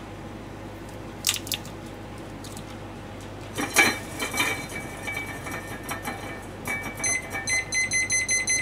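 Small clicks and taps of garlic cloves being handled and peeled on a plastic cutting board. From about seven seconds in, a kitchen timer or appliance beeps rapidly and evenly.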